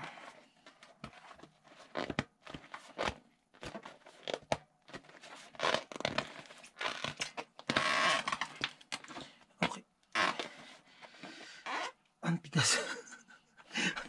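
The stiff bead of a Maxxis mountain-bike tyre being forced over the rim by hand: irregular rubbing and scraping of rubber on the rim, with scattered clicks and a longer scrape about eight seconds in.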